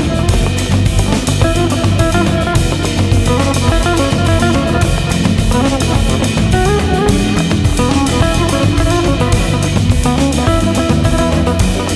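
Background music: a rock or hip-hop instrumental with drum kit, bass and electric guitar keeping a steady beat.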